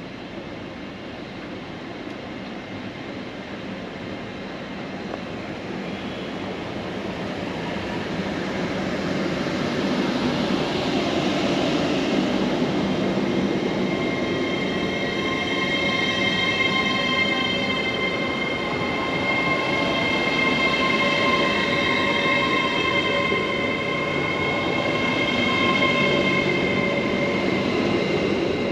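A passenger train drawing near and growing louder over the first ten seconds, then rolling past. From about halfway through, several steady high-pitched squealing tones ring over the rumble, typical of train wheels squealing.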